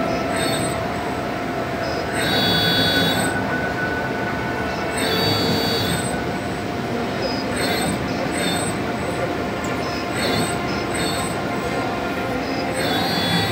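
EKO full-electric servo press brake running, its servo-driven axes whining as they move. There are three high whines of about a second each, shorter chirps in between, and a steady machine hum underneath throughout.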